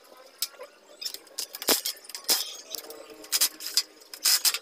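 Metal tools and bolts clinking and tapping against the motorcycle engine as its clutch cover is unbolted: a dozen or so sharp, ringing clinks at irregular intervals, coming thicker in the second half.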